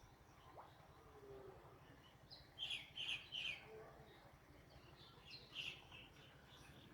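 Faint bird chirps: a quick run of three about two and a half seconds in, and a few more near the end, over a low steady rumble.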